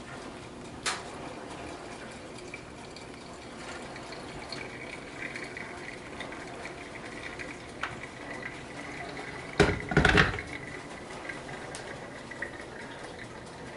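Hot water pouring from an electric kettle onto coffee grounds in a paper filter cone, a steady trickling pour. About ten seconds in, a few loud knocks as the kettle is set back down on its base.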